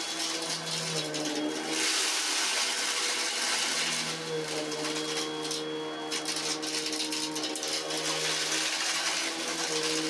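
Dirt Devil upright vacuum cleaner running on carpet: a steady motor hum under a rush of air. The airy rush grows louder for a couple of seconds, twice, as the vacuum is worked over the carpet.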